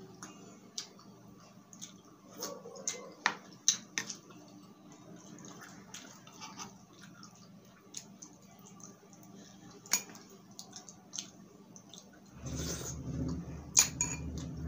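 Eating sounds: a metal spoon clinking and scraping against a glass soup bowl in scattered sharp clicks, with soft mouth sounds between. Near the end a louder low rumble sets in suddenly.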